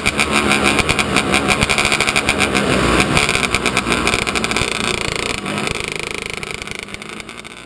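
Onboard sound of a 270 microsprint's engine running hard at racing speed on the dirt, loud and rapidly pulsing. It dies away over the last two seconds.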